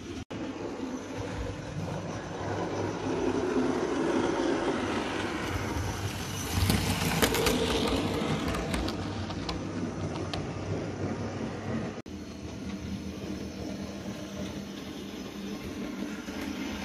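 Model train running on the layout's track: a steady electric-motor hum and rumble of wheels on rail, swelling with a quick run of sharp clicks about seven seconds in. The sound drops out for an instant twice, at edit cuts.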